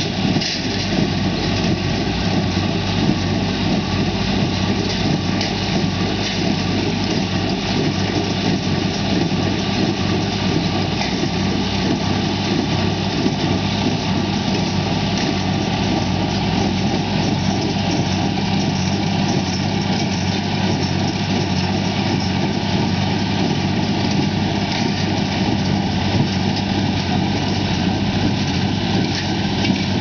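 John Deere 3640 tractor's six-cylinder diesel engine running steadily under load, driving a small square baler that is picking up and baling hay.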